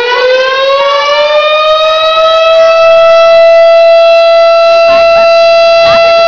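Fire station siren sounding. Its pitch rises over the first two to three seconds, then it holds a steady, loud wail.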